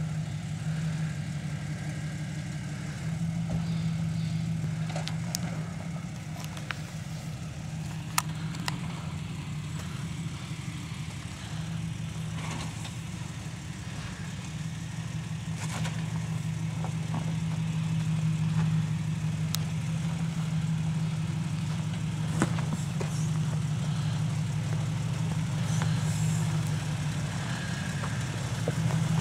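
Jeep Wrangler's engine running slowly as it crawls down a rocky trail, a steady low drone that grows gradually louder as it comes closer, with scattered sharp clicks and knocks.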